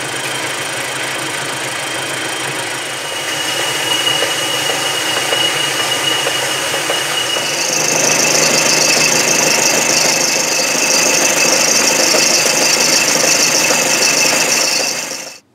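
South Bend 11 metal lathe running while its tool takes a facing cut across a thick steel plate, a steady mechanical cutting noise with a high-pitched squeal. About halfway through it gets louder, with a strong high hiss.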